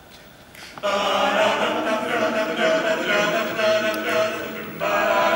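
Male barbershop quartet singing a cappella in close four-part harmony, coming in together a little under a second in, with a short break between phrases near the end.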